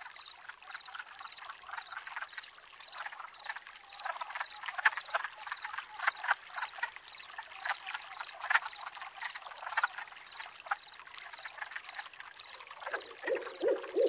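A chorus of frogs croaking: many short, irregular calls overlap, with a faint high note repeating about twice a second. About a second before the end, a lower, louder run of croaks starts and lasts about two seconds.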